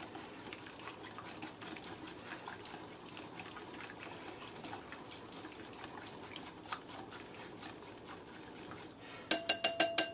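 Marinade being whisked in a bowl: a soft liquid swishing with light ticks, then, about nine seconds in, fast loud clinks of the whisk striking the bowl, which rings.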